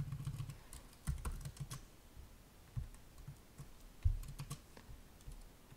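Typing on a computer keyboard in quick bursts of keystrokes, with one louder thump about four seconds in.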